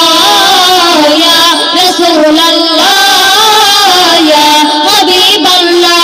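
Female voices singing a Bengali Islamic gazal into stage microphones, in long held notes that wind up and down.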